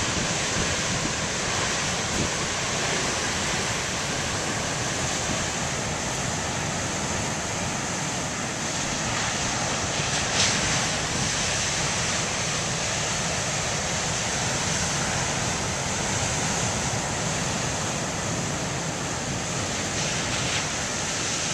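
Large ocean waves breaking as heavy surf, a steady rushing wash with wind noise on the microphone.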